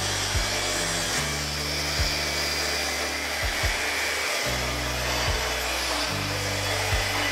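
Plunge-cut track saw running along its guide rail as it cuts through a pine board, with a steady hiss of saw and dust extraction. Background music with a steady beat plays over it.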